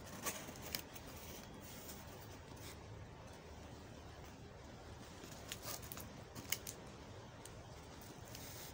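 Cardboard mailer box and packaging handled by hand: a few short, crisp cardboard clicks and scrapes shortly after the start and again about six seconds in, over faint room noise.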